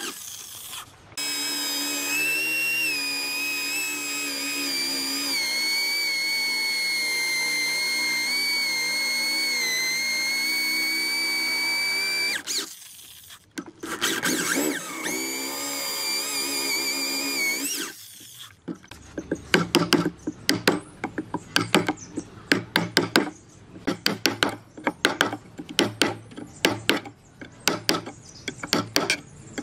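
A power tool runs with a steady high whine whose pitch dips slightly under load. It stops briefly, runs again for a few seconds, and stops. It is followed by a rapid, uneven series of sharp strokes against wood.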